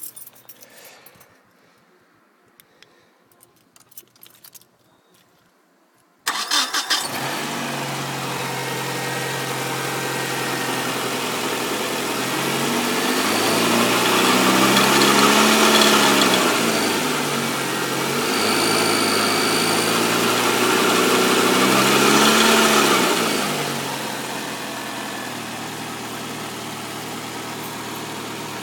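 1994 Nissan Altima's 2.4-litre four-cylinder engine starting about six seconds in, then revved up and back down twice before settling to idle. It runs without its earlier noise now that the belt to the loose air conditioning compressor is off; only a little timing chain noise remains.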